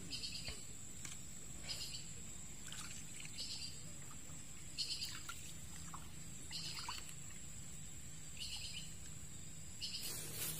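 A bird repeating the same short, high call about every one and a half seconds, over a steady thin high-pitched whine.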